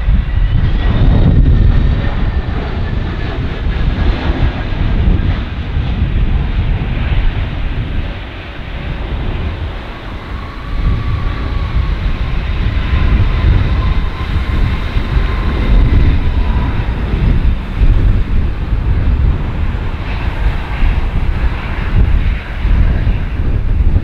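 Turbofan jet engines of an Airbus A321neo during a windy landing attempt that turns into a go-around. A whine rises near the start and a steadier whine holds in the middle, over a heavy rumble, with wind buffeting the microphone.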